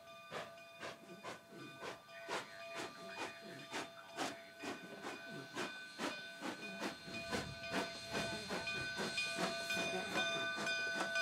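Cumbres & Toltec K-36 narrow-gauge steam locomotive 484 pulling away, its exhaust chuffing in a steady beat of about two to three a second with steam hissing. Several steady high-pitched tones ring over the chuffs and grow louder near the end.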